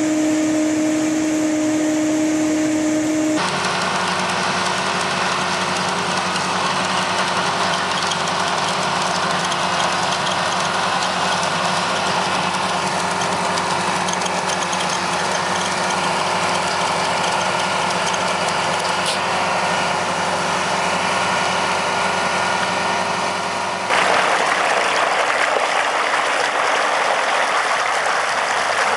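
A steady hum from a hydraulic rock-wheel trencher with two even tones, cut off suddenly about three seconds in by a small pond dredger's engine running steadily. Near the end this gives way to a rushing, gurgling flow of dredged mud slurry pouring out of the discharge pipe.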